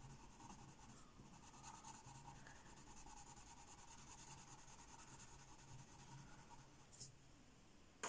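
Faint scratching of a Giorgione coloured pencil shading a swatch on cheap photocopy paper.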